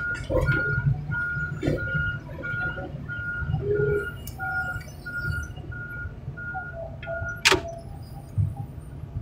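Back-up alarm on a piece of heavy equipment, beeping steadily at about two beeps a second over a diesel engine running low, until it stops about seven seconds in. Half a second later there is a single sharp metallic knock.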